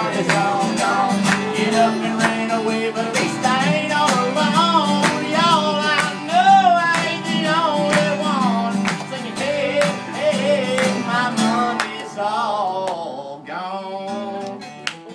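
Two acoustic guitars playing a country tune together, strummed chords under a picked melody line. The playing gets quieter near the end.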